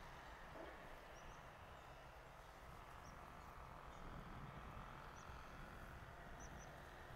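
Near silence: faint outdoor ambience with a low background rumble and a few brief, high bird chirps spread through it.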